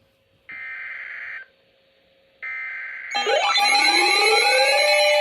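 Emergency Alert System activation: a burst of about a second of buzzing SAME header data tones, a second of silence, then a second burst. About three seconds in, a louder layered electronic alert comes in over it, with steady tones and repeated rising sweeps.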